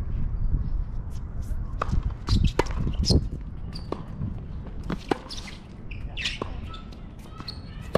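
Tennis rally on a hard court: rackets striking the ball and the ball bouncing, heard as a string of sharp pops, the loudest about three seconds in, over a low rumble.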